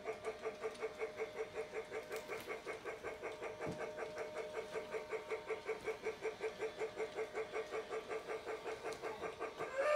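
Polar Express toy train running around its circular track, with a steady rhythmic chugging of about five beats a second.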